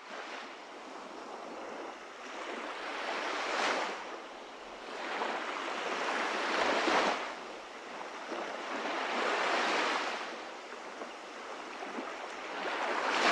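Rushing, surf-like noise of waves washing in, swelling and fading four times about three seconds apart, the last swell the loudest.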